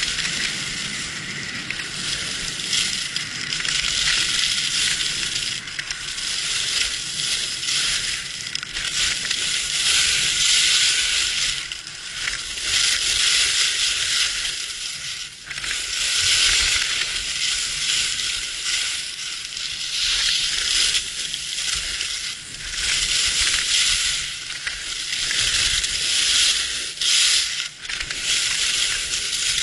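Skis scraping and carving over hard-packed snow, a continuous hiss that swells and eases every couple of seconds through the turns.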